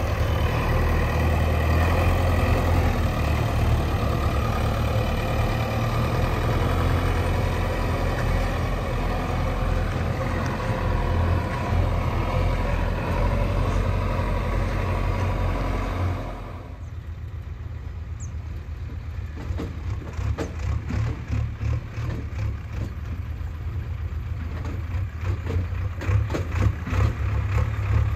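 JCB 3DX backhoe loaders' four-cylinder diesel engines running, a heavy steady drone. About sixteen seconds in the sound drops suddenly to a quieter, pulsing diesel chug that grows louder near the end.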